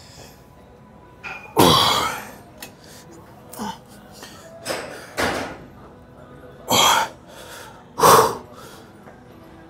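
A man breathing out sharply and forcefully, about six times, roughly once per rep as he squeezes a pec deck machine's handles together. The loudest breath comes about two seconds in.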